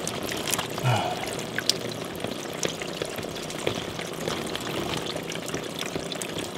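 Water leaking around the base of a tile shower pan's drain, pouring and dripping steadily with many small splashing drips. It is a sign that the pan's waterproofing is torn or missing.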